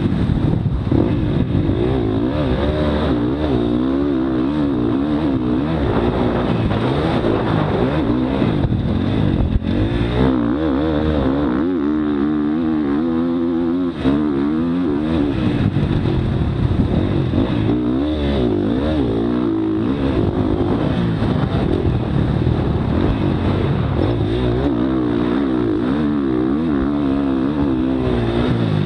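Motocross dirt bike engine heard from an onboard camera, revving up and down continuously as the bike rides the track. There is a brief drop in sound about halfway through.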